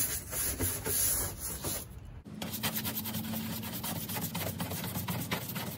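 Hand rubbing at the adhesive residue on a pickup truck's painted body panel where the side trim molding was removed: repeated scratchy strokes. The sound breaks off suddenly about two seconds in and resumes as a similar scratchy rubbing with a faint steady hum under it.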